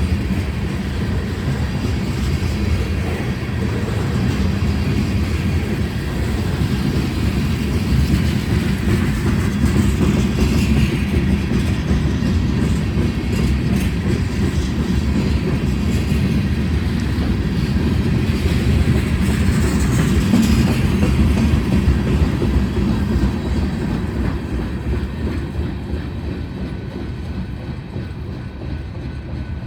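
Refrigerator cars at the rear of a freight train rolling past on the rails: a steady rumble that fades over the last few seconds as the train draws away.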